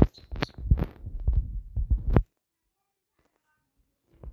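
A quick, irregular run of low thumps and knocks for about two seconds, then it goes silent.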